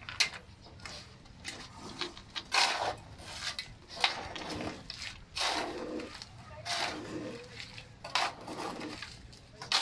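Steel shovel scraping and scooping wet concrete mix by hand, about seven strokes roughly every second and a half.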